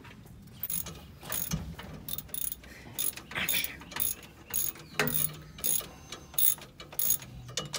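Hand ratchet wrench clicking in short bursts, roughly every half second, as a bolt on the vehicle's underside is worked tight in repeated back-and-forth strokes.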